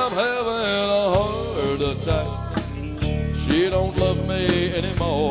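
Country rock band music: a lead guitar playing bending notes over bass and drums.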